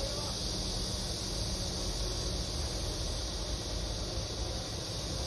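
Steady city ambience: a low, even rumble of distant traffic under a constant high hiss, with no distinct events.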